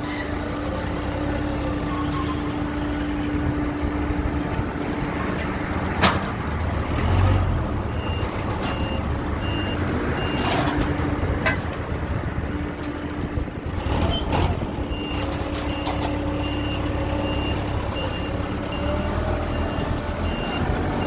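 A forklift with a paper roll clamp runs steadily with a low engine rumble and a steady hum that comes and goes. A reversing beeper chirps at an even pace through the second half, and a few sharp clunks break through, the loudest about six seconds in.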